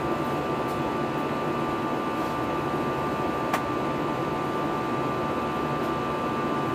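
Steady in-flight cabin noise of an Airbus A321-211 airliner: engine and airflow hiss with a steady high tone running through it. There is one faint click about three and a half seconds in.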